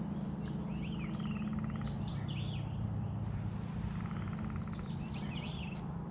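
Several birds chirping and calling in short, repeated phrases, with a buzzy trill that comes and goes, over a steady low rumble.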